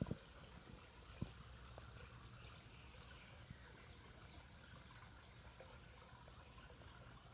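Near silence: a faint steady outdoor hiss with a low hum, and a few soft clicks in the first second or so.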